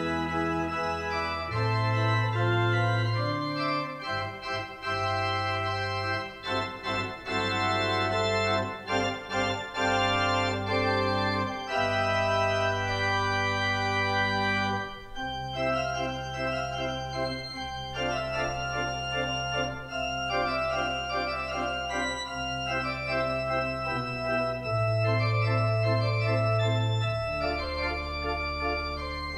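Pipe organ playing slow, sustained chords over held bass notes, the harmony shifting every couple of seconds, with a quicker-moving passage in the middle.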